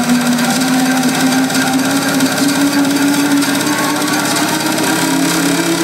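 Electro-house music from a live DJ set, loud over a concert PA: a sustained synth note slowly rises in pitch over a dense, noisy wash, and a second, lower note joins about five seconds in.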